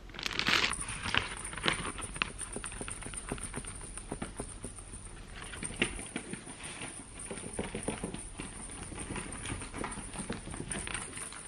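Plastic bag and cardboard packaging being handled and rummaged through: rustling and crinkling with scattered irregular clicks and taps, a louder rustle about a second in.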